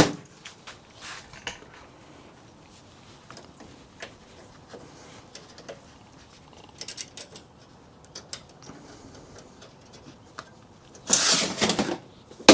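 Scattered light clicks and knocks of server hardware being handled, with a louder scraping noise lasting about a second near the end.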